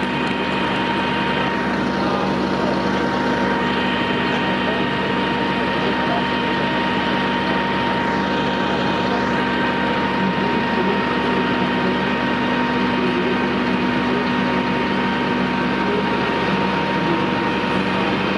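Fire-brigade turntable ladder truck's engine running steadily at a constant speed, with a steady hum and a thin whine held throughout.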